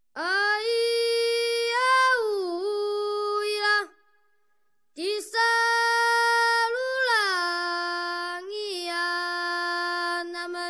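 A high voice singing unaccompanied in long held notes that slide from one pitch to the next, in two phrases with a pause of about a second between them.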